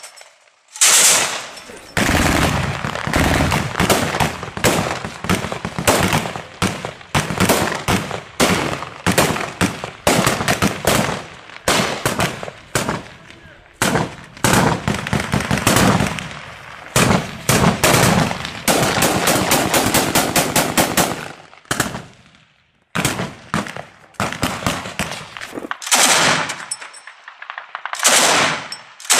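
Firefight gunfire: automatic weapons firing rapid bursts mixed with single shots, shot after shot, with a short lull a little over twenty seconds in before the firing resumes.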